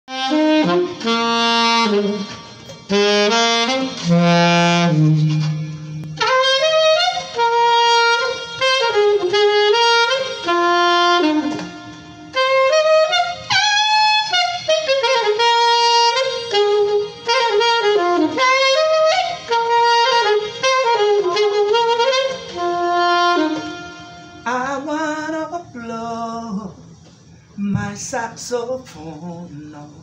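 Saxophone playing a melody of held notes, some bending up and down in pitch, in phrases with short breaks between them.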